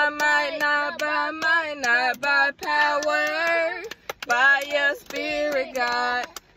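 A woman singing a slow worship chorus in long held notes and clapping her hands, with children's voices joining in. The singing breaks briefly between phrases.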